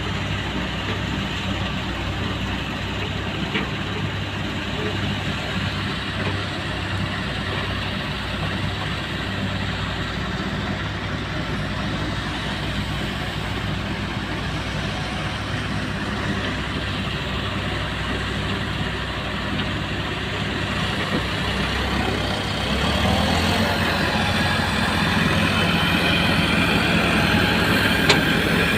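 Hyundai excavator's diesel engine running steadily, then revving higher and louder about three quarters of the way through.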